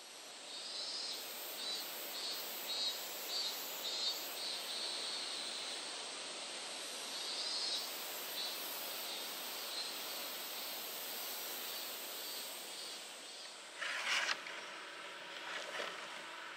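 Outdoor summer ambience: a steady insect drone with a pulsed call repeating about twice a second over it, and a short knock about fourteen seconds in.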